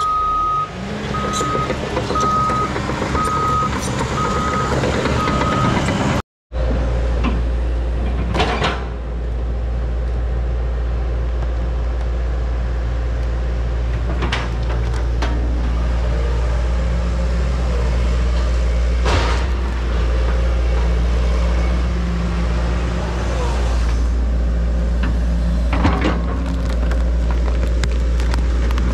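A CAT D3 Next Gen dozer's backup alarm beeps about eight times, evenly spaced, over the rumble of its diesel engine as it backs up. Then a John Deere 120 excavator's diesel engine runs steadily while its bucket digs dirt, with occasional clunks and scrapes.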